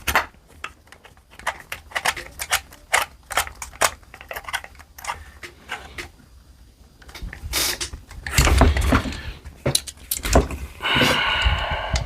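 Small metal clicks and taps of a hex key, screws and rifle parts being handled as the grip is fastened back onto an air rifle. The clicking comes in rapid irregular runs, with louder handling and scraping about eight seconds in and again near the end.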